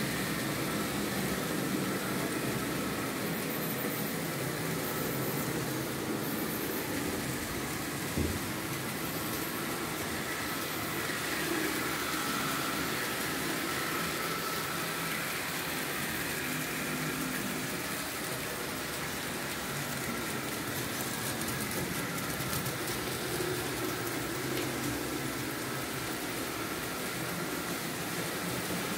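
Märklin H0 model trains running on the layout: a steady whir of small electric locomotive motors with the wheels rolling on the track, and one click about eight seconds in.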